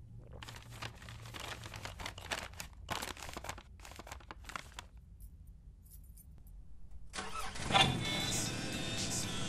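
Crinkling and clicking handling noises for the first few seconds, fitting a paper-bagged bottle being handled. Music then starts about seven seconds in, with a loud first note.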